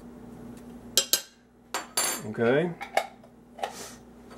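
Metal spoon clinking several times against the ceramic crock of a slow cooker as minced garlic is knocked off it, then set down on the countertop.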